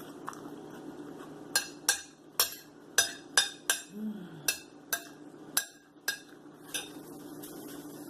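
Dishes and utensils clinking: about ten sharp clinks over a few seconds, over a steady low hum.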